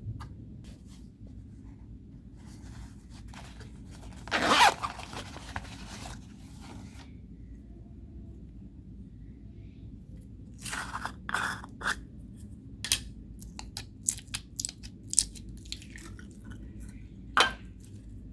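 Homemade slime being squished and worked by hand, giving crunchy, crackling pops: one loud squelching burst about four and a half seconds in, then clusters of short sharp clicks in the second half.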